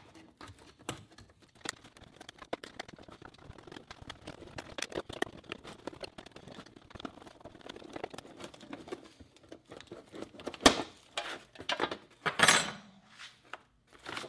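Hand can opener cutting around the outer edge of a sealed Soviet steel ammunition can's lid: a continuous run of small, quick metal-on-metal clicks and scrapes. There is a louder snap about ten and a half seconds in and a longer rasp near the end.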